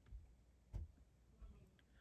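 Near silence: room tone with a few faint clicks and low thumps.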